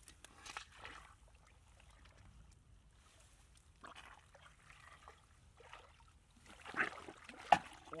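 Hands scooping and groping through shallow muddy water, with small intermittent splashes and squelches that grow louder near the end, and one sharp slap about seven and a half seconds in that is the loudest sound.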